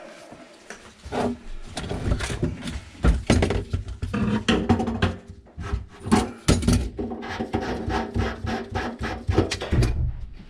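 Irregular knocks, clatter and rubbing of plumbing parts and tools being handled and set down during removal of old sink drain pipes.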